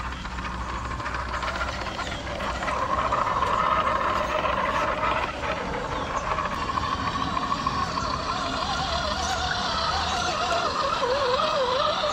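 A 1/10 scale RC crawler's electric motor whining as the truck drives through a shallow stream, its pitch wavering with the throttle and growing more prominent near the end, over the steady splash and rush of the water.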